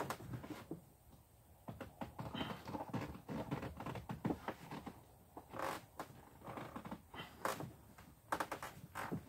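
Irregular knocks, clicks and rustling as a man handles a plastic barrel canoe and its flattened PVC ribs, with a few sharper knocks in the later seconds.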